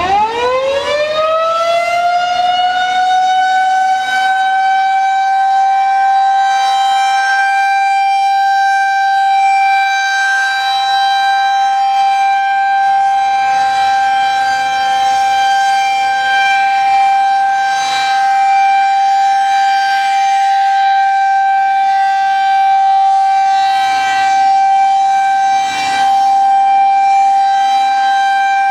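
Federal Signal 2001-130 electromechanical outdoor warning siren winding up quickly at the start, then holding one steady single tone for its scheduled test.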